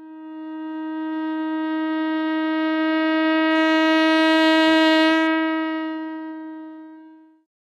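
A single long note blown on a horn, held at one steady pitch. It swells from nothing to its loudest just past the middle, then fades out near the end.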